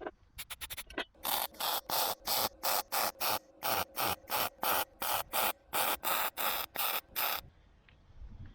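A hand tool worked back and forth over sheet steel in quick, even strokes, about three a second, the kind of rhythm a hacksaw or file makes on a repair panel. The stroking stops about seven seconds in.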